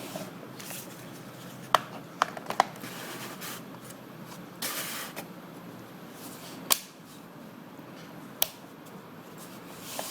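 Sharp clicks and short scrapes of plastic and metal laptop parts being handled and fitted during reassembly, about five clicks spread irregularly, over a low steady hum.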